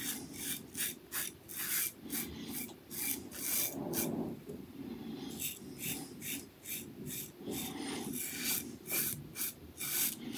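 Blackbird titanium double-edge safety razor with a Gillette Silver Blue blade scraping through lathered stubble in short strokes, about three a second, with a pause of about a second midway.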